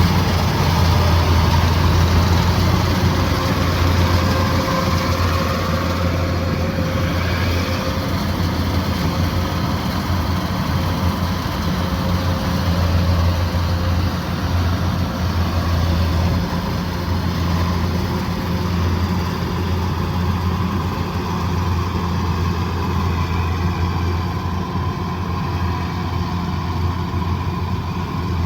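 Kubota DC108X combine harvester's diesel engine running steadily with a deep hum, easing slightly in level about halfway through.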